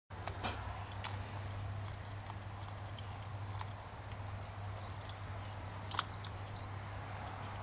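Leonberger puppy chewing and gnawing a raw chicken frame, with sharp crunching clicks of bone every second or so, the loudest about six seconds in, over a steady low hum.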